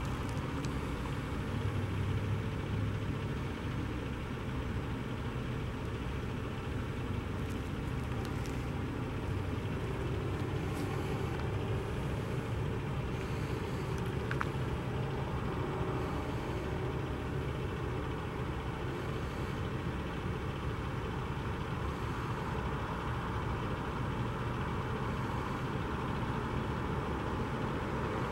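Heavy tow truck's diesel engine idling steadily: a low, even rumble with no change in speed.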